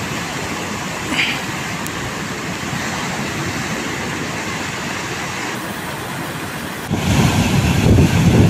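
Storm surf on a rough sea with wind, a steady hiss of foaming water. About seven seconds in it turns louder and deeper as waves break on the shore and wind buffets the microphone.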